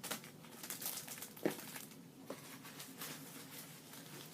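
Rustling and crinkling of a luxury handbag's packaging being handled, a run of short irregular rustles with a sharper tap about one and a half seconds in.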